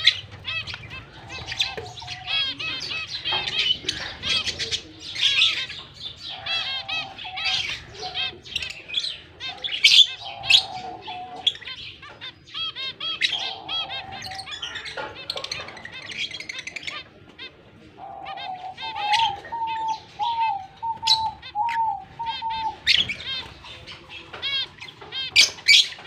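Caged lovebirds chirping and chattering: a busy run of rapid high chirps throughout, with a lower wavering note repeating for several seconds past the middle.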